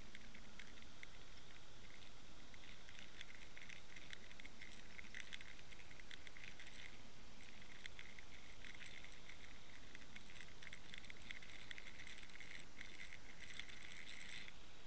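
Underwater sound picked up by a camera trolled through the water: a steady low rumble with dense crackling and ticking that thins out briefly about halfway and stops near the end.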